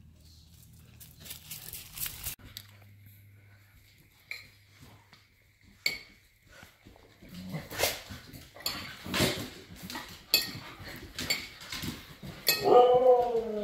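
Siberian husky and husky puppy playing on a hard floor: scattered clicks, knocks and scuffles, growing busier in the second half. Near the end one of the huskies gives a loud call that falls in pitch.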